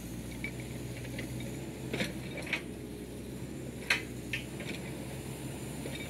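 Well pulley squeaking in short, irregular chirps as the rope runs, with a few sharp knocks, the loudest about four seconds in.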